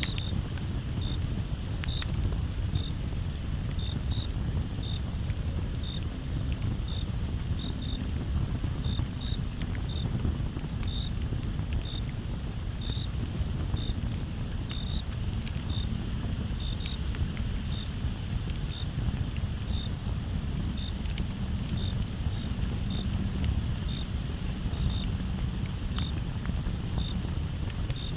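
Campfire crackling with scattered sharp pops over a steady low rumble, while crickets chirp about once or twice a second over a steady high insect trill.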